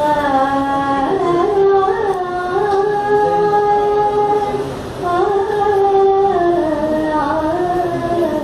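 A woman singing solo in long held notes that slide from one pitch to the next, with a brief break for breath about five seconds in.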